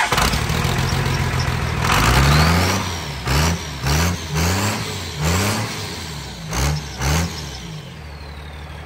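Cummins 5.9 L inline-six turbo-diesel of a 2nd-gen Dodge Ram dually starting up and being revved: one longer rev about two seconds in, then about six quick throttle blips, each with a high turbo whistle rising and falling, meant to blow rainwater out of the open hood stack.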